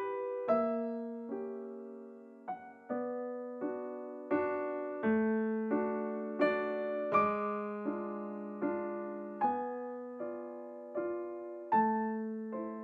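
Background piano music: a slow melody of notes and chords, each struck and then fading, one after another at an unhurried pace.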